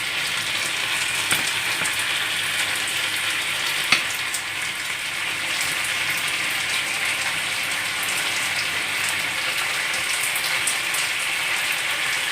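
Pan sauce of chicken juices, vegetable cooking water and mustard sizzling and bubbling in a frying pan: a steady crackling hiss, with two light knocks, about one and four seconds in.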